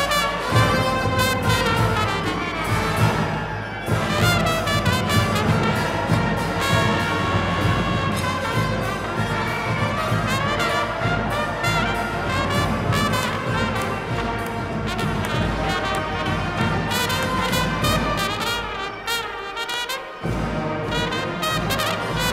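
New Orleans-style brass band playing funeral music: trumpets and trombones over a low brass bass line. The bass drops out for about a second near the end, then comes back in.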